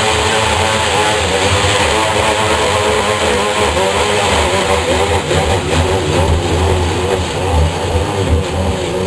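Electric drill running steadily under load for the whole stretch, its motor pitch wavering as it cuts up through sheetrock with hardly any pressure on it, since the sheetrock paper is tearing and separating.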